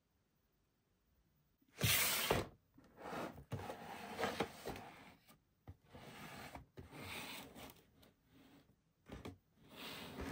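After about two seconds of near silence, a cardboard toy box is handled and turned on a tabletop: a loud rub of about half a second, then irregular rubbing and rustling of the cardboard with short pauses.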